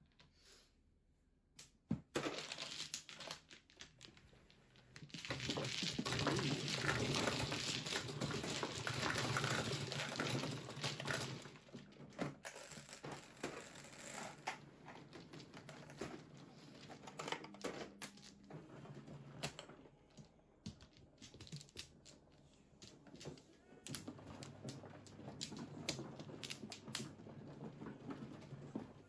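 Mahjong tiles clattering on an automatic mahjong table: sharp clicks start about two seconds in, then a dense, loud clatter for several seconds as the tiles are swept into the table's slots. After that come quieter scattered tile clicks with a low hum as the table reshuffles and the players take tiles from the new walls.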